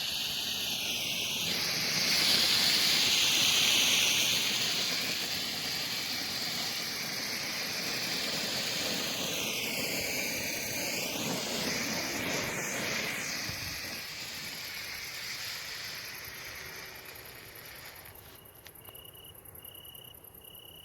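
Green Bengal fire (a 20 g F1 Bengal flare) burning with a steady hiss. The hiss swells a couple of seconds in, then fades away over the last several seconds as the flare burns out. Near the end a few faint short chirps repeat evenly.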